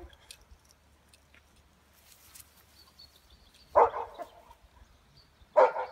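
A dog barking twice, about two seconds apart, each bark short and sharp.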